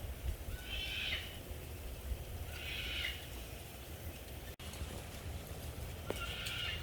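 Three short, high-pitched animal calls, each about half a second long and a couple of seconds apart, over a steady low rumble.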